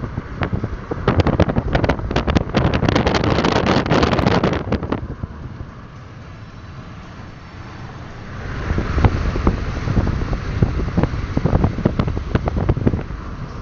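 Wind buffeting the microphone with a crackling rush over the road and engine rumble of a moving car. It drops to a quieter rumble about five seconds in, then gusts back up about three seconds later.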